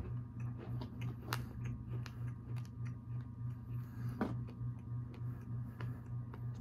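A sprinkle-covered sugar cookie being chewed with the mouth close to the microphone, a steady chewing rhythm of about three bites a second with small crisp crunches from the sprinkles. Two louder crunches come about a second in and past the middle.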